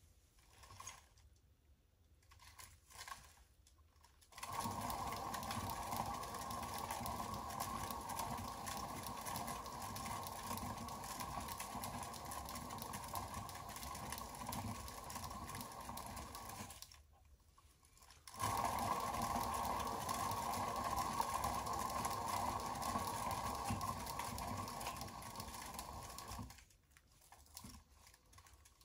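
Small electric motor of a painting spinner whirring as it spins the canvas, run twice: it starts about four seconds in, cuts off abruptly after about twelve seconds, then starts again after a short pause and cuts off a couple of seconds before the end.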